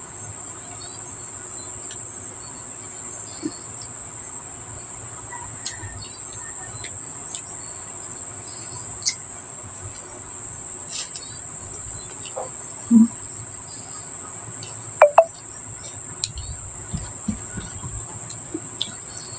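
Steady high-pitched chorus of insects droning throughout, with scattered soft clicks and smacks of eating by hand and a short chirp about fifteen seconds in.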